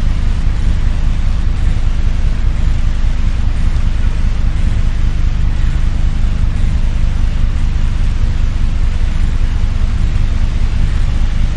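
Steady low rumble with a fainter hiss above it, unchanging throughout, with no distinct events.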